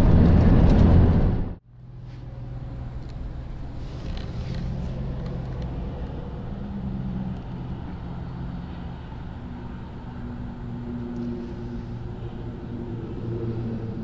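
Car driving on the road: steady engine hum and road rumble, the hum's pitch drifting slightly. A louder passage cuts off abruptly about a second and a half in.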